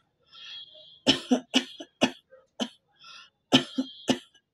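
A woman coughing in two fits of short, sharp coughs, about five and then three. Each fit is preceded by a drawn-in, slightly wheezy breath.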